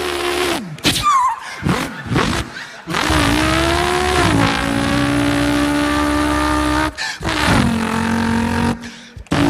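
A man imitating a racing car with his voice. It opens with short rising and falling engine revs, then holds a long steady engine note, breaking off about seven seconds in as if changing gear before holding the note again.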